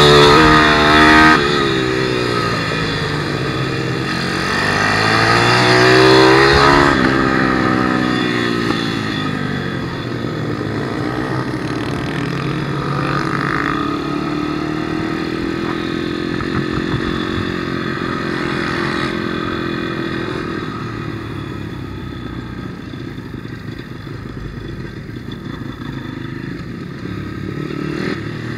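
A 160cc pit bike's single-cylinder four-stroke engine heard from on board the bike while racing. Its pitch climbs to a peak at the start, drops, climbs again to a peak about six to seven seconds in, then falls away and settles into a lower, steadier note that grows quieter over the last several seconds.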